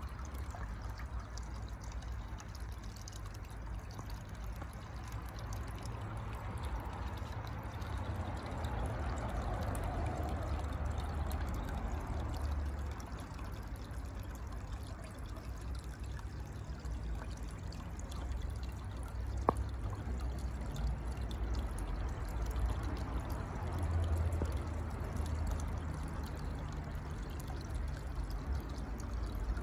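Water pouring and trickling steadily from a pipe outlet into a fish pond, with a low rumble underneath and a single sharp click about twenty seconds in.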